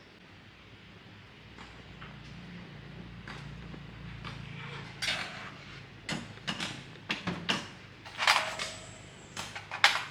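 A series of sharp knocks and clanks, as of hard parts being handled and set down, growing busier in the second half. A faint low hum runs under the first half.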